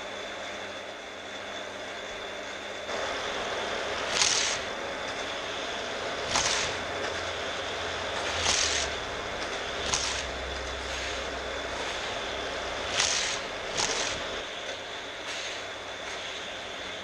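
Die-cast cars lapping a vintage orange plastic Hot Wheels track, with the battery-powered booster motors whirring steadily. A short, loud whir and rattle comes each time a car is shot through a booster, about six times, roughly every two seconds.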